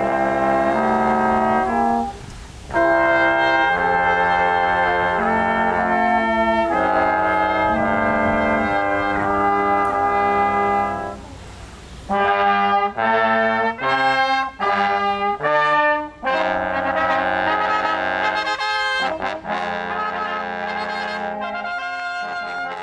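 Brass quintet of trumpets, horn and trombone playing a piece in sustained chords. The music breaks off briefly about two seconds in and again around the middle, then continues in shorter, separated chords.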